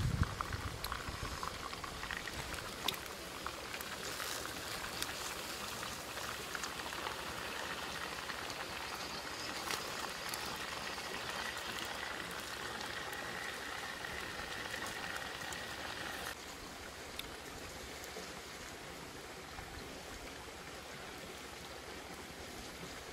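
Pieces of pig intestine sizzling in a black clay pot over a wood fire: a steady crackling hiss with scattered small pops, which drops a little in level about sixteen seconds in.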